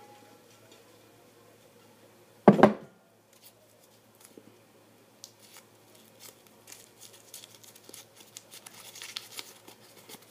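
Folded paper slips rustling and crinkling as one is drawn from a container and unfolded, a run of small clicks and crackles that grows busier in the second half. One brief loud sound about two and a half seconds in.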